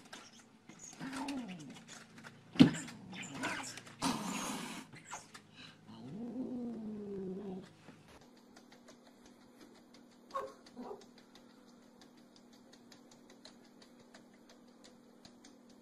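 Two cats fighting through a window pane: scuffling, a sharp thump of a paw striking the glass, a hiss and a short wavering yowl. After about eight seconds only a faint steady hum remains.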